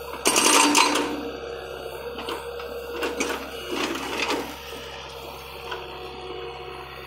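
Hydraulic breaker hammer on a John Deere 50D compact excavator hammering concrete in a short loud burst about half a second in, followed by a few scattered knocks, over the steady hum of the running machine.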